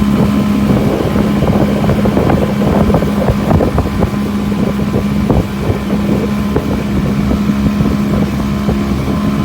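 Boat engine running steadily as the boat travels at sea, with wind buffeting the microphone.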